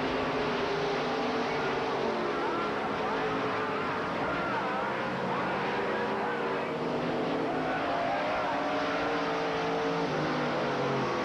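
Several dirt late model race cars at speed, their engines overlapping in a steady drone, with each engine's pitch drifting up and down as the cars lift and accelerate.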